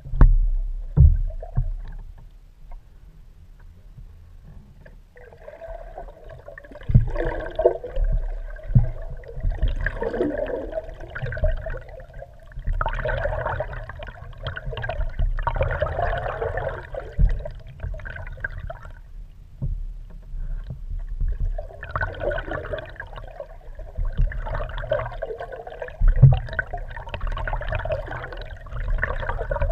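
Muffled water rushing and gurgling past an underwater GoPro camera mounted beneath a moving kayak, with a steady low rumble. The water comes in surges about every one and a half to two seconds, broken by two quieter lulls. A few dull knocks are heard, the loudest near the start and again near the end.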